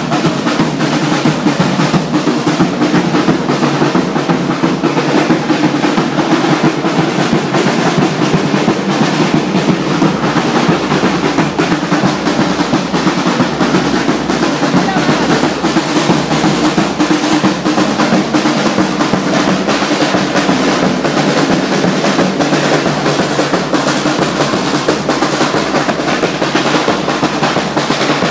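Loud, unbroken drumming in a fast rolling beat: the street drums that traditionally accompany the dancing giants Mata and Grifone in Calabrian festivals.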